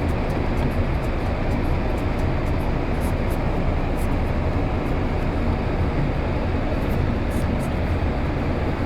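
Rain falling in a steady, even hiss, with a low rumble underneath and faint light ticks on top.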